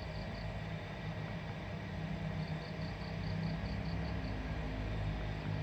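Steady low mechanical hum, like a distant engine, with a faint high pulsing about four times a second.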